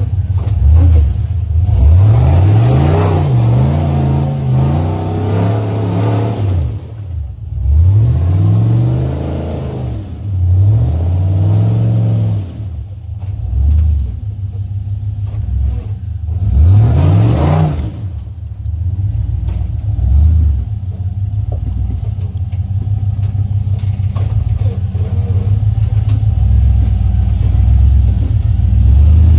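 Rock crawler's engine revving in repeated bursts as it climbs a steep rock ledge under load, its pitch rising and falling three or four times and running steadily in between.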